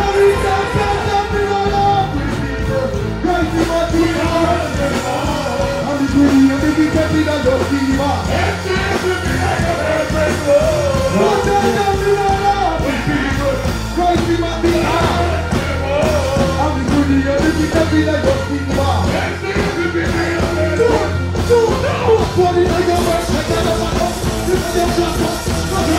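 Live dancehall band music played loud through a stage sound system, with a vocalist singing and chanting into a microphone over a steady bass.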